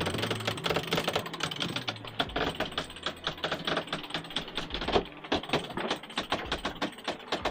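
Rapid, irregular clicking, many sharp ticks a second.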